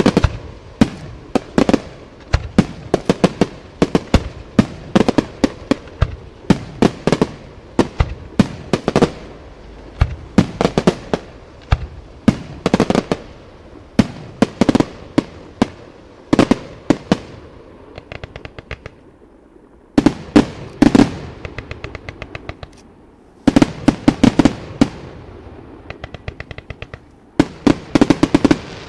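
Aerial firework shells bursting in rapid volleys of sharp bangs, with crackling between volleys and a couple of brief lulls in the middle.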